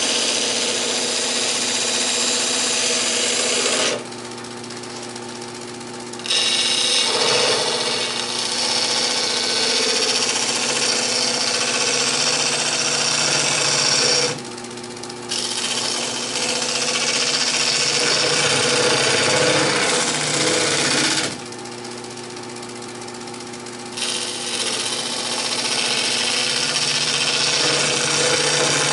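Turning tool cutting into an epoxy resin and cassette tape blank spinning on a woodturning lathe: a loud, steady scraping noise over the lathe's running hum. Three times the cutting noise drops away for one to three seconds, leaving the lathe running.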